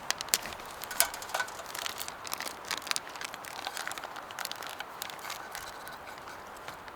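Crinkling and sharp clicks of food packaging and utensils being handled, busiest in the first three seconds and thinning out after.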